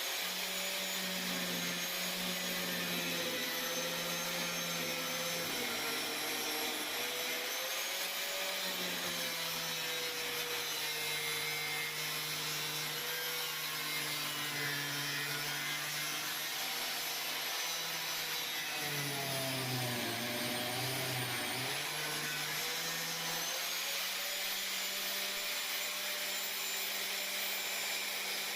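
Electric power tool motor running continuously, its pitch wandering and dipping for a couple of seconds near two-thirds of the way through as the load on it changes.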